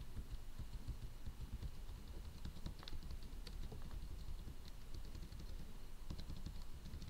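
Computer keyboard typing: irregular light key clicks, over a steady low rumble.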